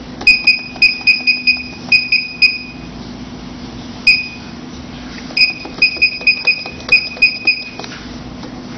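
Touchscreen key beeps on a lipo laser cavitation slimming machine, one for each press as a channel's frequency setting is stepped up. There are two runs of about ten quick, short, high beeps, about four to five a second, and a single beep about four seconds in. A low steady hum runs underneath.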